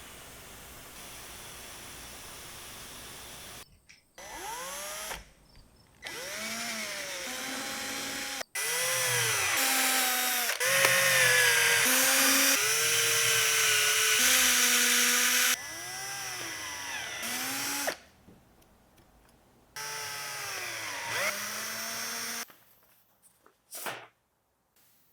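A steady hiss for about four seconds, then short bursts of an electric power tool such as a drill, cut one after another. The motor's whine rises and falls in pitch as it speeds up and slows down.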